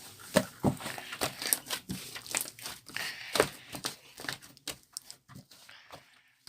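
Hands squishing and pressing mixed slime, making irregular sticky pops and crackling clicks that thin out near the end.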